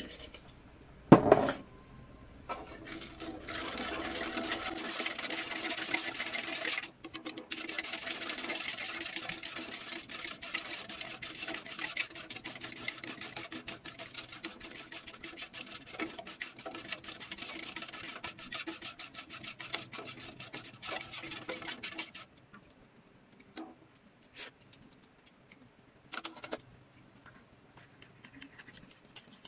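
Metal spatula scraping and stirring barbecue sauce around a stainless steel pan, a steady rasping scrape that stops about two-thirds of the way through, followed by a few light clicks. A loud knock about a second in.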